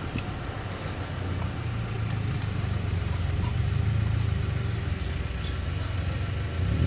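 A vehicle engine idling with a steady low hum, amid street traffic noise.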